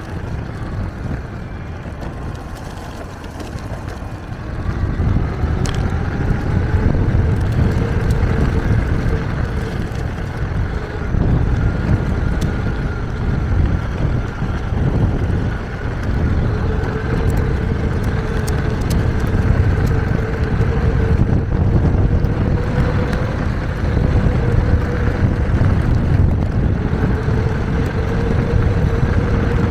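Electric mountainboard riding on a concrete path: the pneumatic tyres rumble over the pavement under a high electric-motor whine, with wind on the microphone. About five seconds in the whine rises and the rumble grows louder as the board speeds up, easing off briefly twice later on.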